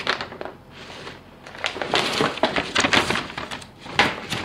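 Large glossy paper poster rustling and crinkling as it is handled and folded, a dense run of crisp rustles starting about a second and a half in.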